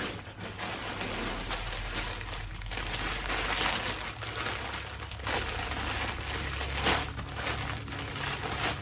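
Packaging crinkling and rustling continuously as bagged clothing items are handled and pulled out of a shipping package, with a few louder crackles.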